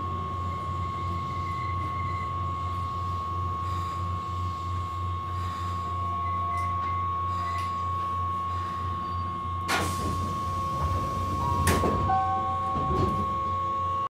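Keihan 5000 series commuter train running, heard from inside the passenger car: a steady low rumble with a constant high-pitched tone. Two sharp clanks come about ten and twelve seconds in, followed by a few brief high tones.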